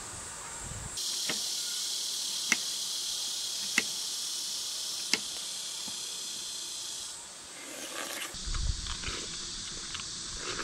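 A small knife slicing a peach, knocking on a wooden cutting board about every second and a bit, over the steady high chirring of insects. Near the end come irregular bites and chewing of the peach.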